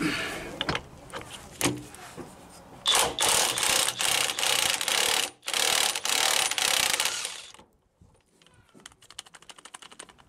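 Impact wrench hammering on a 15/16-inch rear hub nut in two long bursts with a short break between, after a few knocks as the socket goes on. A quieter run of fast clicks follows near the end.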